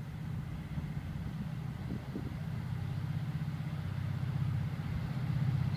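Diesel freight locomotives approaching, a low pulsing engine rumble growing steadily louder.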